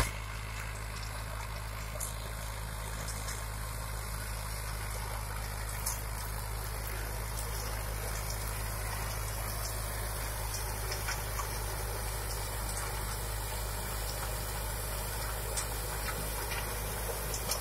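Tractor diesel engine running steadily under load while driving a rear-mounted rotary implement through dry crop stubble, a continuous low drone.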